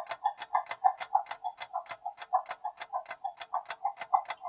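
Countdown-timer sound effect: a fast, even clock tick-tock.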